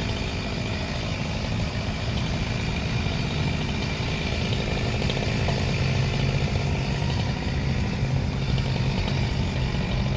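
Chainsaw engine running steadily at an even, low speed, with no cutting bite or revving.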